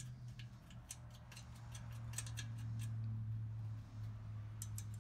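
Light metallic clicks and taps of a small engine's sheet-metal muffler being fitted onto the exhaust port by hand: a scatter of sharp ticks in the first three seconds and a few more near the end, over a faint steady low hum.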